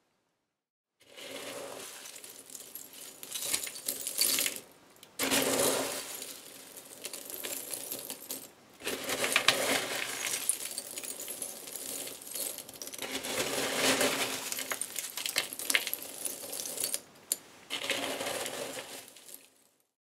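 A hand rummaging through a bowl piled with hard, crusty scale flakes from inside an old water heater, a dense crunching, clinking rattle with a few short pauses.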